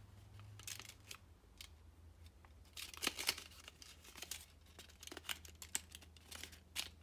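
Blue kami origami paper crinkling and crackling as fingers handle and crease a folded model, in scattered spells of small crackles over a faint, steady low hum.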